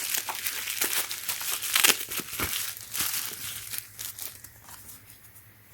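Packaging crinkling as it is handled, with irregular sharp crackles that thin out and die away over the last second or so.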